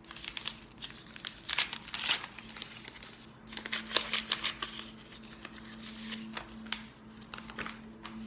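A sealed paper envelope being torn open and its contents handled: irregular paper tearing, rustling and crinkling, with the loudest rips about two and four seconds in.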